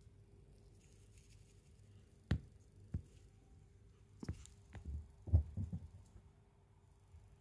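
Scattered soft thuds and knocks on the floor from a cat playing fetch with a small toy ball, as the toy drops and the cat's paws land while it dashes after it. There are two single thuds before halfway, then a quick run of thuds, the loudest a little past halfway.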